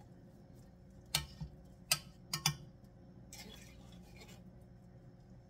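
Utensil tapping and scraping against an opened tomato paste can, knocking the thick paste out into a pot: about five sharp taps in quick succession, then a softer scraping.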